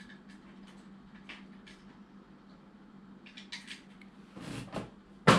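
Small plastic clicks and rustling as action-figure parts and clear plastic blister trays are handled, over a faint steady hum. It ends with a single sharp, loud plastic clack.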